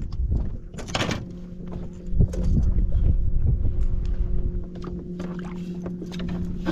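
A small fishing boat on the water: a steady low hum sets in after about a second. There is a splash about a second in and low knocks a second later, over wind and water noise.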